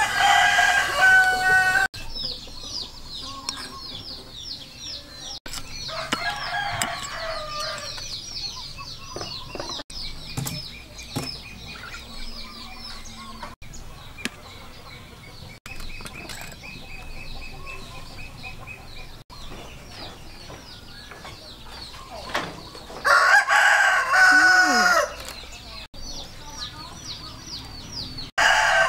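Roosters crowing several times, loudest near the start, about 23 seconds in and at the end, with a fainter crow around 6 seconds. A fast, high repeated chirping runs underneath through the first half.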